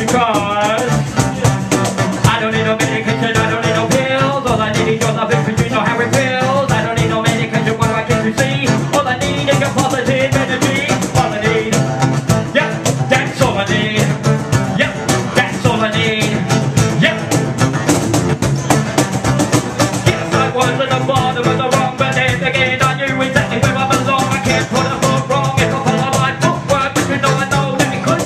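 Live music: a guitar playing with a voice over it and a quick, steady percussive beat.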